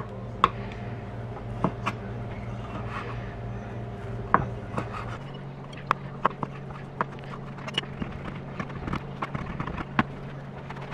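Scattered clicks and knocks of kitchen work, knife and utensils on a board and dishes, at an irregular pace over a steady low appliance hum that shifts about five seconds in.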